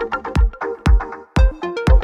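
Background electronic dance music with a steady kick drum beat, about two beats a second, and synth notes between the beats.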